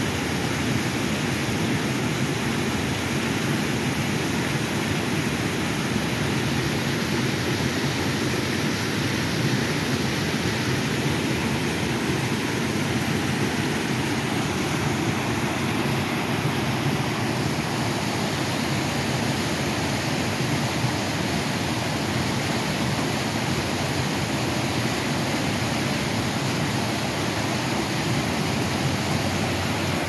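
Creek water rushing and splashing down small cascades over layered rock ledges: a steady, unbroken rush of white water.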